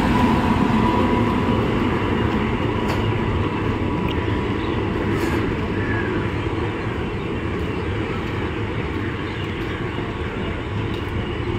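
Passenger coaches rolling past along the platform line, a steady rumble and clatter of wheels on rail that slowly gets quieter as the train slows on arrival. A humming tone from the electric locomotive that has just passed dies away in the first second or so.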